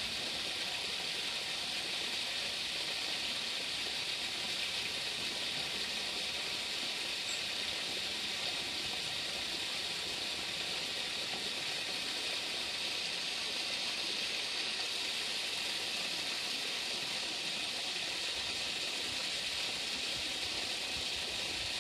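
A steady, even hiss with no distinct events standing out.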